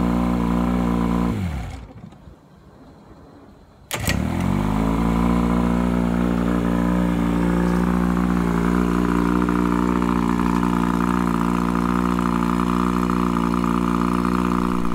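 A 1972 Mercury Thunderbolt 500, a 50 hp four-cylinder two-stroke outboard, running steadily after repairs to its ignition (new switch box and coil). It is run on a garden hose for cooling water. About a second and a half in it winds down and stops; about four seconds in it is started again, catches at once, and settles back into steady running.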